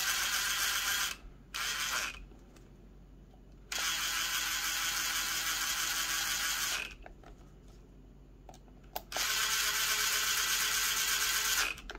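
Cordless driver running in bursts as it drives the long screws that fasten the wheel weight and centre hub into an RC crawler wheel. There are four runs: one ending about a second in, a short one just after, and two of about three seconds each, the first starting about four seconds in and the second near nine seconds.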